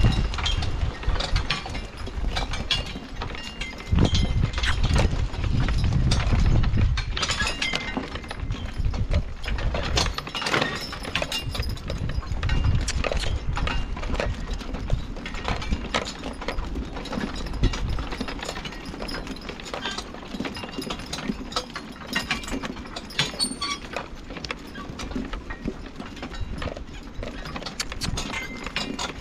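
A pair of Brabant draft horses walking while hauling logs, their hooves plodding and their harness hardware clinking in many sharp clicks. A heavier low rumble sounds in the first seven seconds or so.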